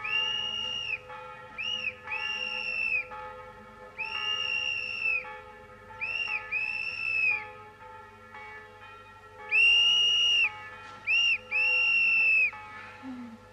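A shrill whistle sounding on one steady high pitch in blasts: a long blast, then a short and a long, repeated three times, the last group the loudest.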